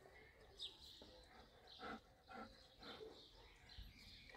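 A few short, faint growls from a dog, around the middle. Otherwise near silence.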